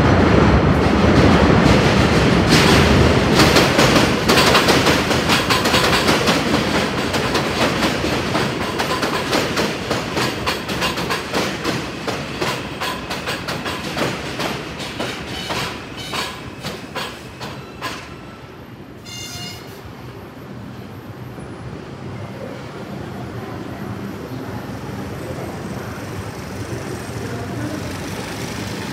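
New York City Subway train running over the steel elevated structure, its wheels clacking over the rail joints, the clacks slowing and the sound fading away over about eighteen seconds. A brief high squeal follows a second later, then a quieter steady background noise.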